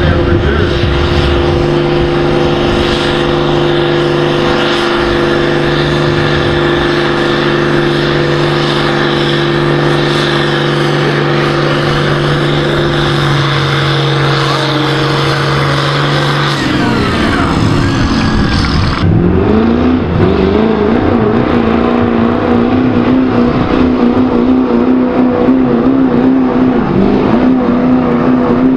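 Pulling tractor's diesel engine running steadily, then dropping in pitch. After an abrupt change, a pickup truck's diesel engine runs hard with a wavering pitch as it pulls the sled.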